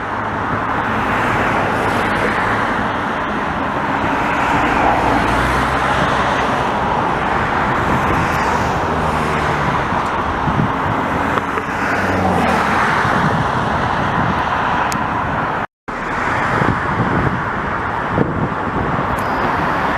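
Steady highway traffic noise: a continuous wash of cars and trucks passing on the road below, loud enough to drown out landing jets. The sound cuts out completely for a split second about three-quarters of the way through.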